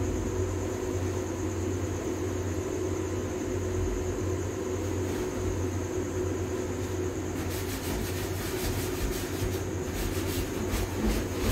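Steady machine hum with a constant tone and low rumble. From about two-thirds of the way in, a rapid run of faint crackles is added.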